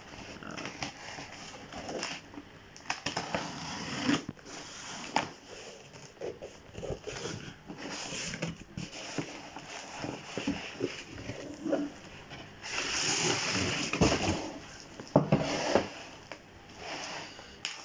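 Hands handling a boxed tool kit and its packaging: irregular rustling, rubbing and light knocks, with a louder stretch of rustling about 13 seconds in.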